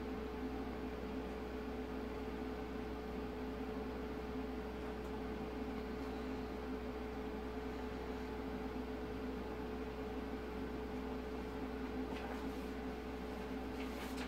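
Steady machine hum: a constant mid-pitched tone over a soft hiss. A few faint light clicks come near the end.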